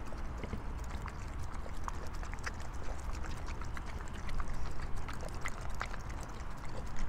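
Dogs lapping and licking a soft, wet meal of sour cream, cottage cheese and kefir from their bowls: irregular small wet clicks and smacks over a steady low rumble.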